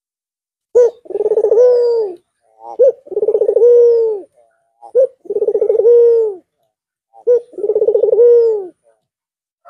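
White (albino) Barbary dove cooing: four repeated calls about two seconds apart, each a short first note followed by a long rolling coo that falls away at the end.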